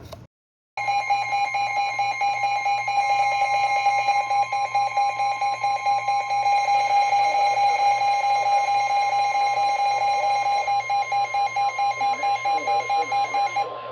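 NOAA weather radio receiver sounding its warning alarm: a steady high tone with a rapid, even pulsing beep over it, which cuts off near the end. The radio is set off by a severe thunderstorm warning coded for the county it is programmed to, Rutherford County.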